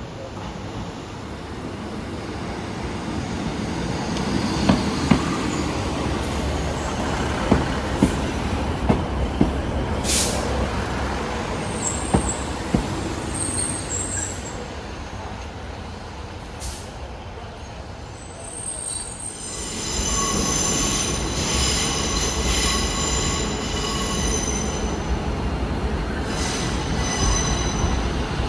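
A train running past on the rails: the sound builds over the first few seconds, then a run of sharp clicks as the wheels cross rail joints, fading after about fifteen seconds. About twenty seconds in, a steadier, louder sound with high whining tones starts abruptly.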